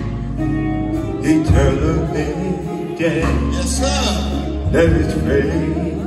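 Live gospel quartet music: a male lead voice singing over electric bass and guitar with the band.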